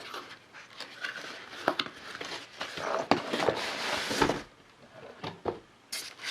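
Cardboard box and paper packaging being handled and rummaged through: irregular rustling and scraping with light knocks, loudest about three to four seconds in.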